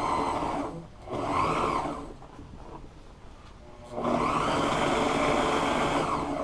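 Sewing machine stitching vinyl boxing along the piping of a boat seat cover, running in short stretches with a pause in the middle and a longer continuous run near the end.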